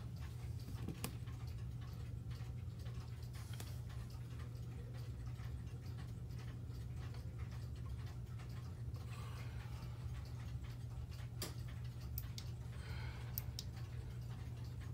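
Howard Miller 613-303 mechanical pendulum clock movement ticking steadily, over a steady low hum.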